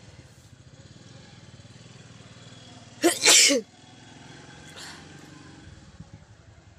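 A person sneezes once, loudly, about halfway through: a short catch, then a burst lasting about half a second.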